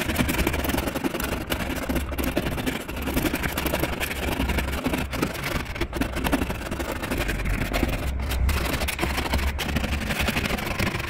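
Plastic scraper scratching flaking, peeling clear coat off a car door panel: a continuous run of quick, fine scrapes over a steady low rumble.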